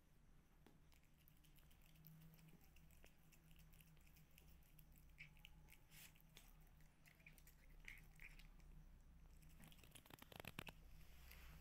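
Near silence: room tone with a low hum, faint scattered clicks and soft rustles, and a quick run of clicks near the end.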